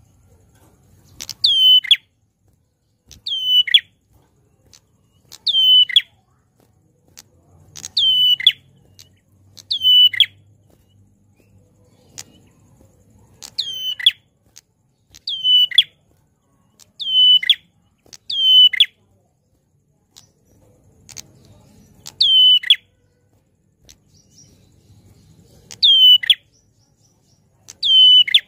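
Ashy tailorbird (prenjak klawu) singing loudly: a series of sharp, downward-sweeping calls repeated about every two seconds, some close in pairs.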